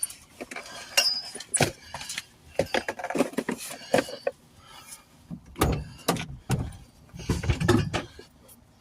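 Irregular clicks, clanks and knocks of tire-change gear being handled around a car, with a few heavier low thumps about midway and near the end.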